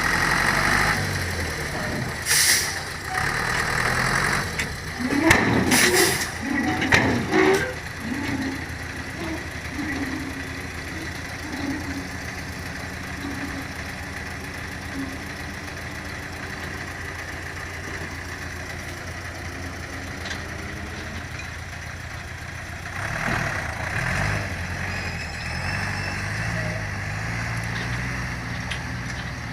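Heavy diesel engines of a long-reach Kobelco excavator and a dump truck running on a worksite. There are sharp hissing bursts and loud jolts in the first several seconds, then a steady engine hum that picks up again near the end.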